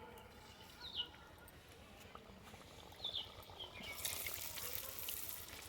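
Rice-flour puri frying in hot mustard oil in a kadhai: a hissing sizzle rises about four seconds in as it hits the oil. A few short chirps sound before it.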